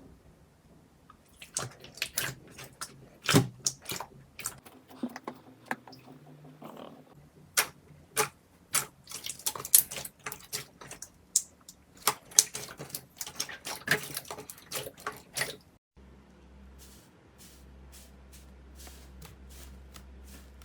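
Slime being squished and poked, giving an irregular string of sharp wet clicks and pops. About three quarters of the way through it cuts to a quieter clip with fewer, fainter clicks.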